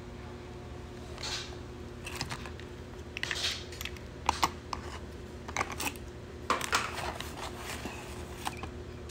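Hands handling small plastic jars and packaging: scattered clicks, taps and short rustles of plastic and paper, over a steady low hum.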